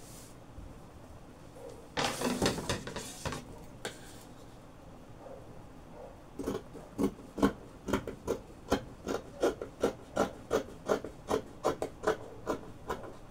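Dressmaking scissors cutting through adire print fabric: a quick, regular run of snips, about two to three a second, in the second half, after a short burst of fabric rustling about two seconds in.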